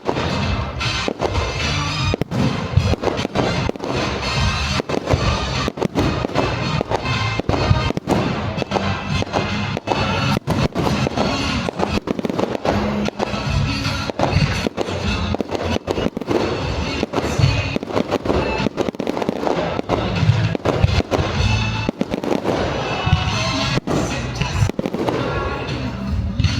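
Fireworks bursting in rapid, continuous succession, with music playing throughout.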